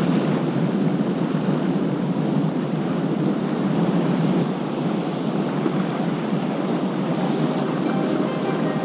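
Steady rush of river water flowing below a dam spillway, an even, unbroken noise.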